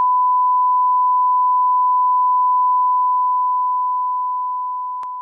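Line-up test tone of a colour-bars leader: a single loud, steady sine-wave beep at one unchanging pitch. It begins to fade slowly a little past halfway through, with a faint click near the end.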